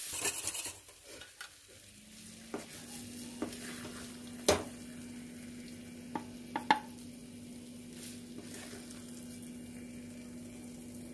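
Wooden spatula scraping thick, freshly cooked carrot halwa around a steel kadai and scooping it onto a plate, with a few sharp knocks, the loudest about four and a half seconds in. A light sizzle from the hot pan fades out within the first second, and a faint steady hum sets in about two seconds in.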